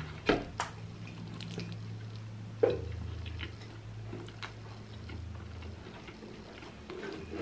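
A person chewing pizza, with scattered short wet clicks over a steady low hum.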